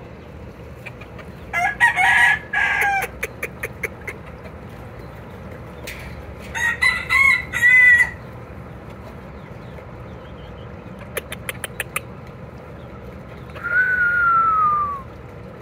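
Gamefowl roosters crowing three times, the first two broken into several short pitched segments, the last a single long note falling in pitch. Short runs of sharp clicks come between the crows.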